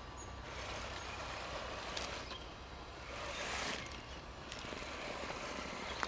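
A 1:10-scale RC rock crawler's electric drivetrain running in two swells as it works through a muddy creek bed.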